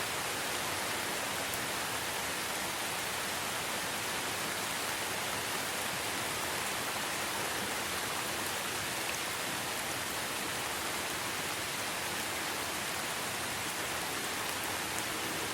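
Steady rain falling: an even, unbroken hiss without distinct drops or lulls.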